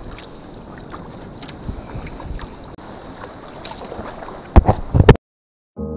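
Sea kayak being paddled: water swishing and splashing with the paddle strokes, with some wind on the microphone. A few loud knocks close together near the end, then the sound cuts off suddenly.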